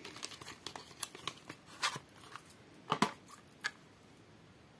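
Small cosmetic packaging and paper being handled: scattered light clicks and rustles, with a few sharper clicks about two, three and three and a half seconds in.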